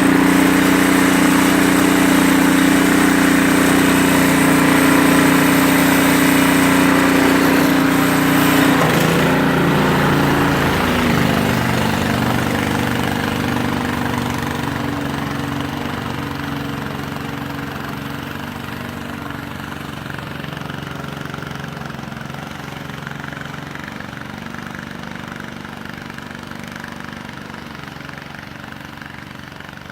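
An engine running steadily. Its pitch drops about nine to eleven seconds in, and it then grows gradually fainter.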